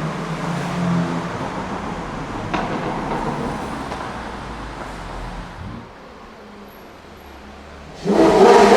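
Supercar engines in a road tunnel: one car's engine note fades away over several seconds as it leaves. About eight seconds in, another car's engine comes in suddenly and loudly.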